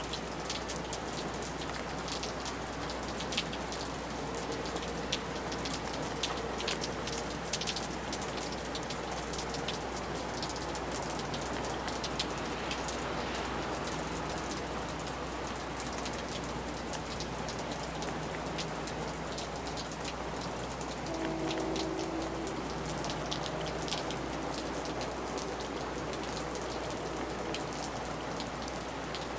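Steady rain on a porch, with many sharp drips and splashes from an eavestrough. About 21 seconds in, a faint passing vehicle adds a low hum for a few seconds.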